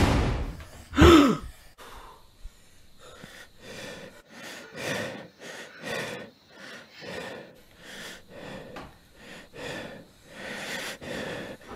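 A man gasps loudly as if jolted awake, then breathes heavily in quick, even breaths, about two a second.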